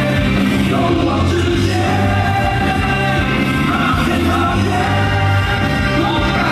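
Baseball cheer song playing loud, a sung vocal line over a steady, repeating bass line.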